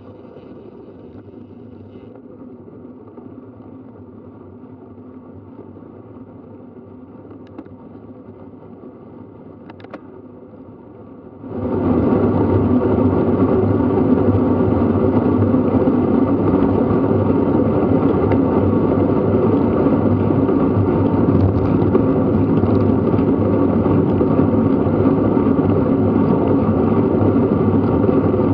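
Wind and road rush on a camera mounted to a road bike riding at about 20 mph, a steady rush. About eleven seconds in it jumps abruptly to a much louder rush.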